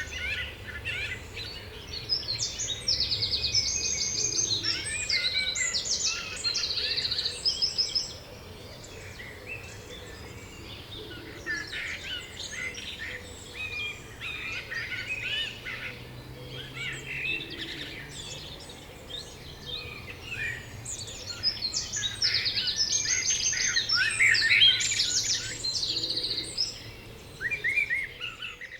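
Songbirds singing in spring chorus. Two loud stretches of fast trilling song, one early on and one near the end, are separated by quieter scattered chirps.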